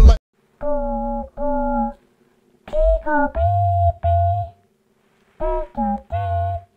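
A voice humming a short tune in held notes, three phrases with brief silent pauses between them.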